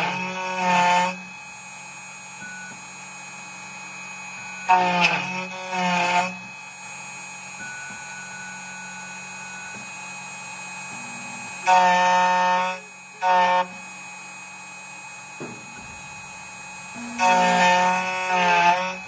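2M2 Tank CNC key cutting machine at work cutting an SX9 key blank's bitting. Its motors whine in four bursts a few seconds apart, each in two parts with pitch that bends, over a steady machine hum.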